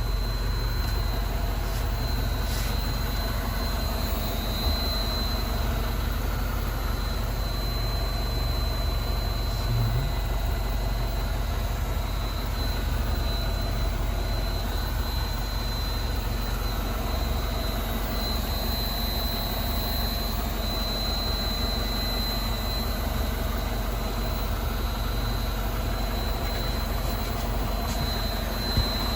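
A thin, steady high-pitched whine, one tone, from the left fuel tank of a MINI Cooper R56 non-S; it swells slightly about two thirds of the way through. A low steady rumble runs underneath. The owner suspects an electrical fault, which appeared after the charcoal canister was replaced.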